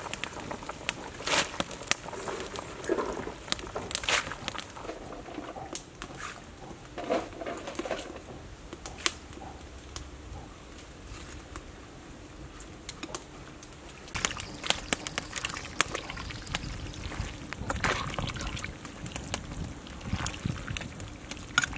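A pot of soup simmering and bubbling as handfuls of water spinach are dropped in and pushed under, with scattered sharp clicks and knocks throughout.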